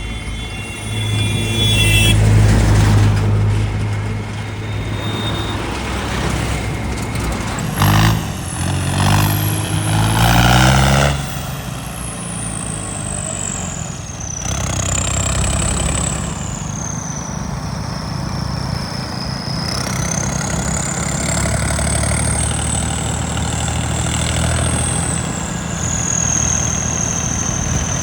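Diesel tractor engine running, revved up and down a few times about eight to eleven seconds in, then settling back to a steady run. A high whistling tone wavers slowly up and down through the second half.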